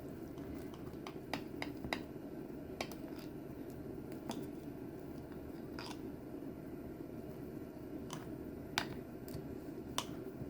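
Knife slicing through a freshly baked sourdough focaccia: scattered crisp crackles and clicks of the crust and blade, the sharpest two near the end, over a steady low hum.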